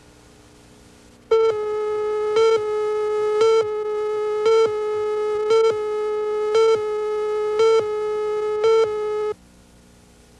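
Broadcast countdown leader tone: a steady tone that comes in about a second in and cuts off about nine seconds in, with a short louder beep once a second as the numbers count down.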